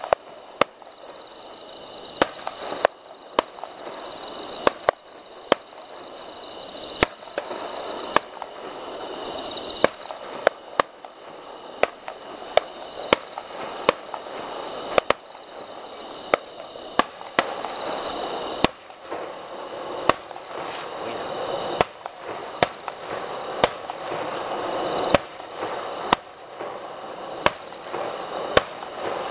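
Aerial fireworks shells bursting in a long series of sharp bangs, about one a second and unevenly spaced, over a continuous noisy wash between the bangs.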